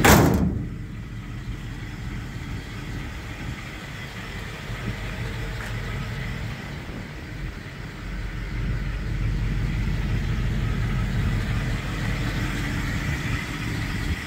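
1953 Ford F-100's flathead V8 idling steadily, with one sharp loud thump right at the start. After the thump the engine sounds duller, and it grows louder about eight seconds in.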